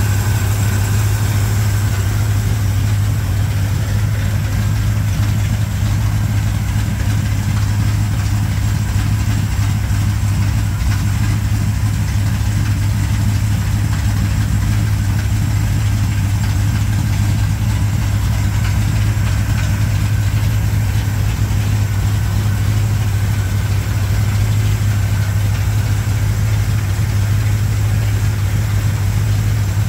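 Carbureted Chevrolet V8 of a 1987 Chevrolet K10 idling steadily, warming up after its first start following a head gasket replacement.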